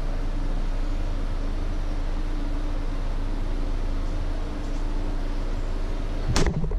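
Steady low hum with hiss, then a refrigerator door swung shut with a single thump near the end.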